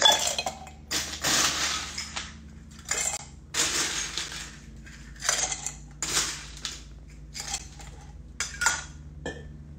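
Ice being scooped from an ice bucket and dropped into a copper mule mug: a run of short crunching scrapes and clatters of ice cubes, about ten in all, each lasting under a second.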